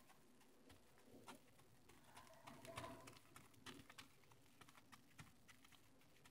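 Near silence, with faint hoof steps of a horse walking on gravel and a bird calling faintly about halfway through.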